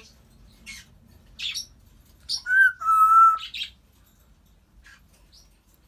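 African grey parrot calling: a few short chirps, then about two and a half seconds in a short whistled note followed by a longer, steady whistle, and one more short call after it.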